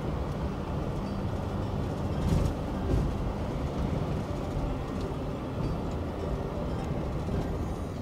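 Car driving along a gravel road: a steady low engine drone mixed with rumbling road noise from the tyres.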